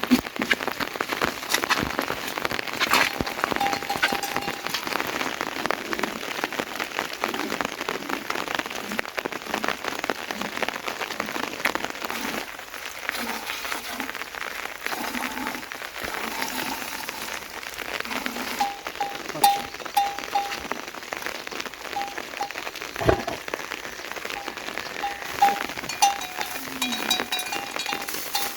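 Steady rain falling, with many separate drop hits and a few louder drips or knocks. In the second half there are short runs of faint high pips.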